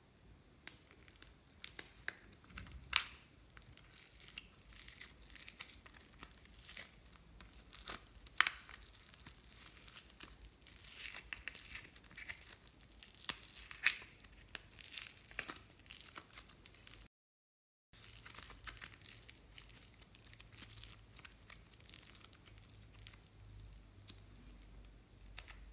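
Handling a plastic bow-shaped slime container and green putty slime: sharp plastic clicks and snaps, with crinkling of thin clear plastic and soft squishing as the slime is pulled out and shaped. The loudest clicks fall about 3, 8 and 14 seconds in, and the sound breaks off briefly a little after halfway.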